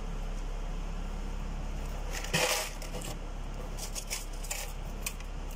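Light metallic clinks of valve springs and washers being handled and fitted onto a GMC V8 cylinder head, with a louder clatter about two and a half seconds in. A steady low hum runs underneath.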